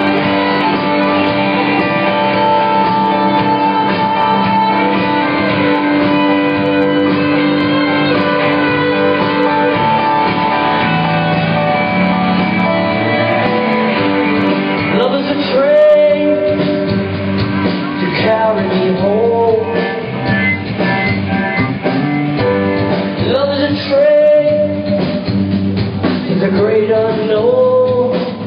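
Live rock band playing, recorded on a phone from the audience. Held guitar and keyboard chords over bass give way, about halfway through, to a wavering, bending melody line.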